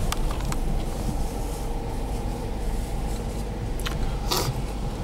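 Jeep Grand Cherokee running slowly over a rough, muddy off-road trail: a steady low rumble of engine and tyres with scattered small knocks and clicks. A brief scraping hiss comes a little over four seconds in.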